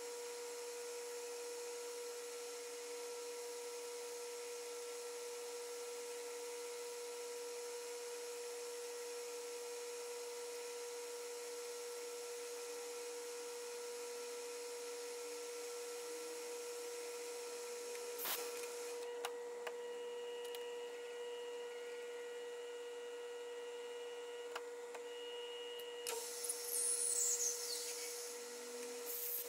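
Metal lathe running with a steady hum, its spindle turning a brass bar in a collet while it is turned and drilled. There is a sharp click a little past halfway and a short spell of louder handling noise near the end.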